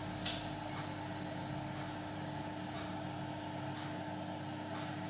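Steady background hum with one low steady tone, a short click just after the start, and a few faint strokes of a marker on the whiteboard.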